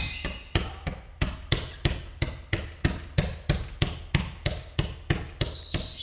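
Galah cockatoo flapping its wings while perched, each wingbeat a sharp knock, about three a second in a steady rhythm: an excited wing-flapping display.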